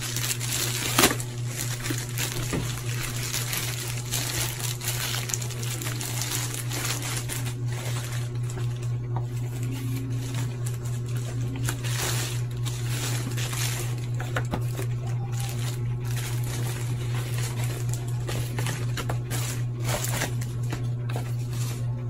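Plastic courier pouch crinkling and rustling as it is torn open and pulled off a cardboard box, with a sharp click about a second in. A steady low hum runs underneath.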